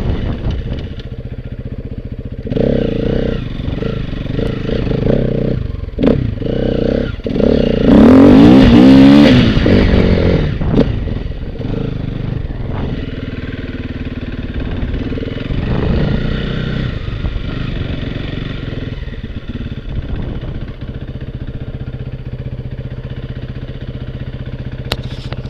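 Engine of a small vehicle being ridden, revving hardest about eight to ten seconds in, then settling to a steadier run.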